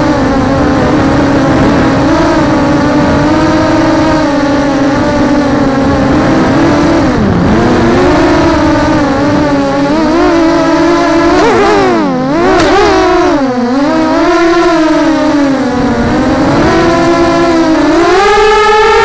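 Brushless motors and propellers of a 200mm FPV quadcopter whining, heard up close from a camera mounted on the frame, with airflow noise underneath. The pitch swoops down and back up several times as the throttle changes, dropping sharply about twelve seconds in and climbing again near the end.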